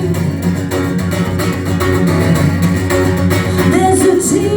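Live band playing an instrumental passage between sung lines: strummed guitar over bass guitar.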